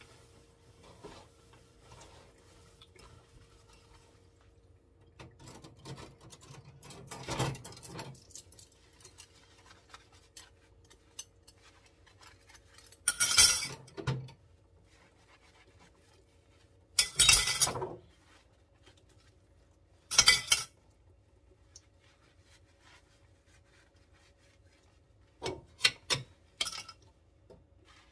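Dishes being washed by hand in a stainless steel sink: steel cutlery, plates and a steel pot clink and clatter against each other and the sink in about five short bursts, with quiet sponge scrubbing between.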